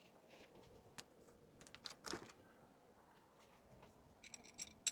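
Faint handling sounds of small items and packaging: a light click about a second in, a soft rustle around two seconds, and a brief crinkling near the end.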